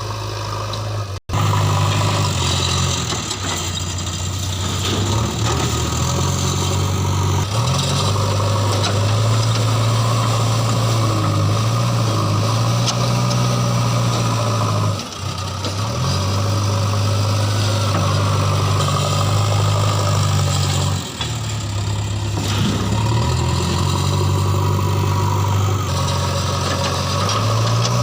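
Diesel engine of a JCB 3DX backhoe loader running at working revs while digging and loading mud. Its low drone steps up and down every few seconds as the hydraulic load changes. It cuts out for an instant just after the start.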